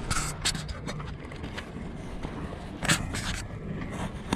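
Oil extractor's suction line sputtering, drawing air in irregular short hissing spurts: the engine oil has been sucked down to the bottom of the Yamaha TR-1 engine's oil pan. The loudest spurt comes about three seconds in.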